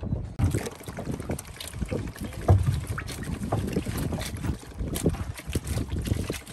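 Water lapping and splashing against a small boat's hull, with irregular knocks and wind on the microphone.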